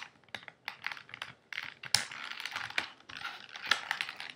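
Irregular clicking and crinkling of clear plastic toy packaging as a small toy figure is worked free of it by hand.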